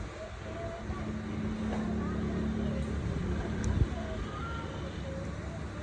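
Steady low rumble of background noise with faint distant voices, and a single sharp click a little past the middle.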